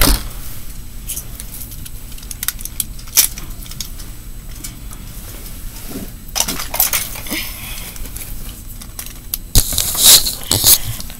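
Scattered clicks and rattles of someone rummaging among hard plastic toys for Beyblade launchers, busier about six seconds in. Near the end, loud knocks and rubbing as hands grab the camera close to its microphone.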